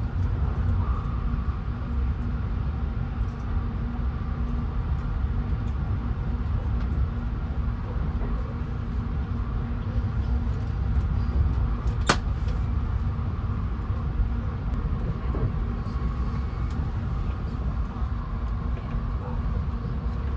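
Thunderbird limited express train running at speed, heard inside the passenger cabin as a steady low rumble with a faint hum. A single sharp click about twelve seconds in.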